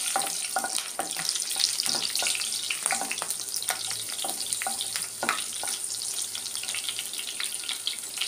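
Green chillies sizzling and crackling in hot oil in a nonstick kadai as they are stirred with a wooden spatula, with irregular light knocks of the spatula against the pan.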